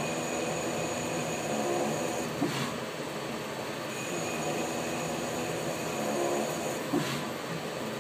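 BL-X36 slant-bed CNC lathe threading a steel part: the spindle runs steadily under the cut while a high whine sounds for about two and a half seconds on each threading pass. Between passes the whine stops briefly and a click sounds as the tool pulls back, twice, with a third pass starting near the end.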